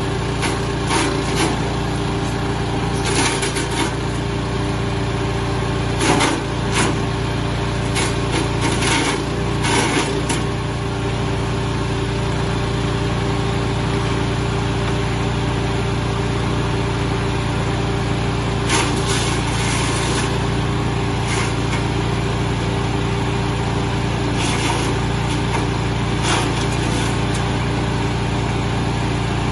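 TK100WC commercial chipper/shredder running steadily, with irregular sharp cracks and knocks as material goes through the cutters, most of them in the first ten seconds and again about two-thirds of the way in.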